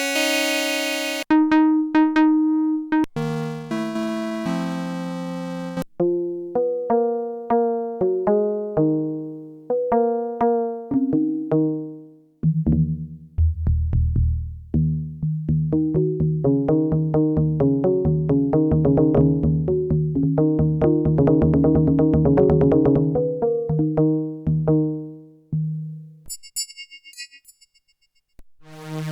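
Arturia MicroFreak synthesizer playing presets: a held tone, then short plucked notes in a melodic pattern. About twelve seconds in, a deep pulsing bass line joins. The notes die away near the end, leaving faint high blips.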